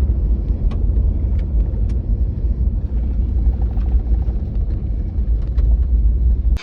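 Loud, steady low rumble with a few faint ticks.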